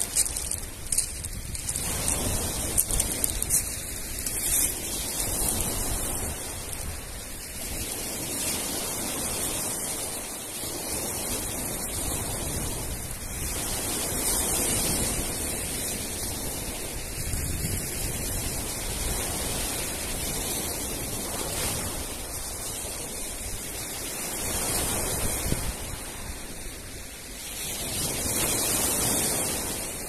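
Sea surf breaking and washing up a pebble beach, the rush of water rising and falling every few seconds.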